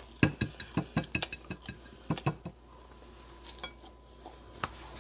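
Close-up chewing of food: a quick run of crisp, irregular clicks and smacks in the first two and a half seconds, then a few scattered ones.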